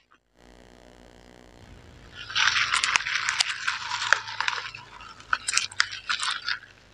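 Close-up handling of a sealed plastic drink cup: about two seconds of loud crackling and rattling, then scattered taps and clicks.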